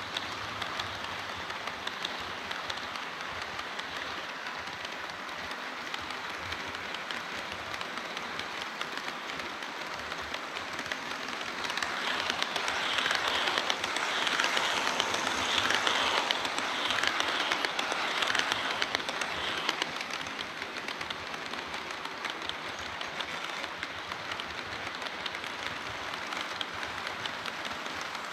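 HO-scale model train running on the layout track: a steady, rapid clicking rattle of small wheels on rail, which grows louder for several seconds in the middle as the train passes close and then fades back.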